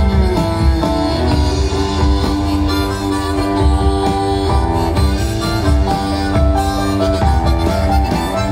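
Live band music through a large open-air PA, heard from within the crowd: held melodic notes over a steady, pulsing low drum beat.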